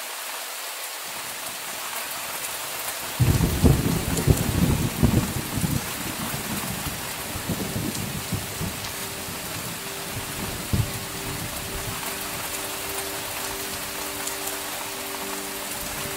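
Steady heavy rain, with a rumble of thunder that breaks in about three seconds in, is loudest for the next few seconds, and trails off in smaller crackling rumbles.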